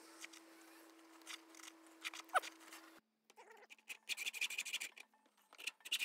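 A steady hum with faint clicks and one short rising squeak a little past two seconds. From about halfway, a hacksaw starts cutting a brass hex nut clamped in a vise: irregular scrapes at first, then even back-and-forth rasping strokes near the end.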